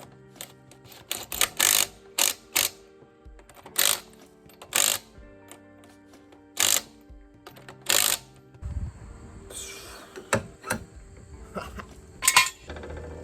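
Background music with irregular short ratcheting bursts from a hand ratchet tightening lug nuts on a wheel spacer. A few sharper clicks come near the end.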